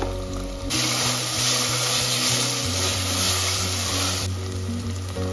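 Background music with a steady beat, and a loud, even hiss that starts about a second in, lasts about three and a half seconds, and cuts off suddenly.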